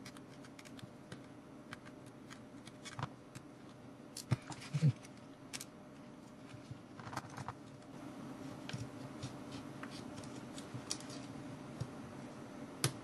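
Scattered small clicks, taps and scrapes of a small screwdriver and fingers working on a Nikon Coolpix 5200 compact camera's body while it is taken apart, with a couple of louder knocks about four to five seconds in.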